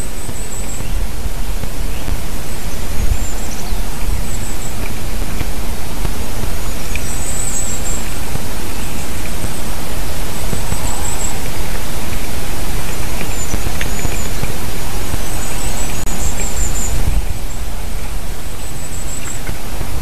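Loud, steady rush of wind on the microphone, with a low rumble. Thin, high-pitched calls of a small bird come in short series every few seconds.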